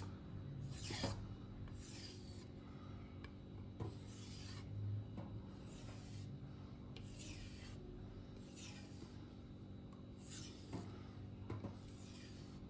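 Fiskars chef knife being stropped on a strop loaded with 6 to 7 micron diamond compound: a row of rubbing strokes, about one a second, each a short hiss that falls in pitch.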